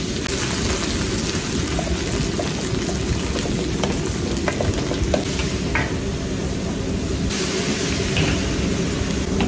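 Onions and garlic sizzling in hot oil in a wok, stirred with a metal ladle that scrapes and clinks against the pan, over a steady low rumble. The sizzle grows louder about seven seconds in, as chicken goes into the wok.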